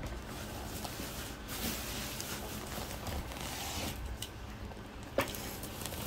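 Rustling of packaging being handled, with one light knock a little past the five-second mark.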